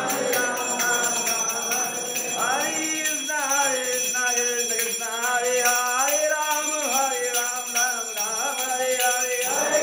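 Devotional kirtan singing during a temple aarti: a melodic chanted line over a steady, continuous metallic jingling of bells and hand cymbals.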